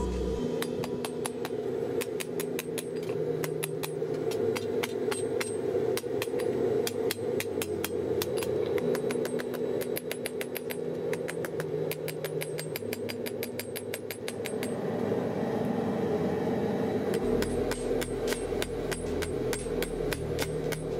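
Hand hammer striking a red-hot steel cleaver blank on an anvil, a steady run of rapid, regular blows as the blade is forged.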